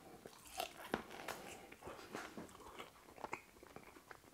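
A person chewing a mouthful of crispy, crunchy-battered pork ribs, with faint irregular crunches and bites.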